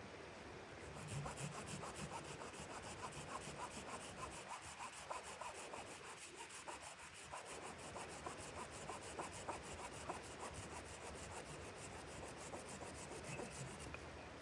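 Faint, rapid, even scraping strokes, repeated without a break.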